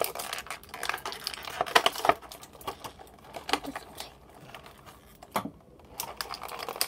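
Small plastic toys and packaging being handled: scattered light clicks and taps with some crinkling, busiest in the first two seconds. A single soft knock comes about five and a half seconds in.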